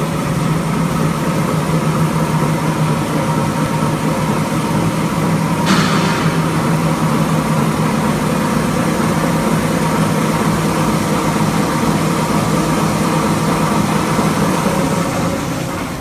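Tissue-roll and kitchen-towel converting machine running: a steady mechanical drone with a low hum and a faint higher tone. A short hiss about six seconds in.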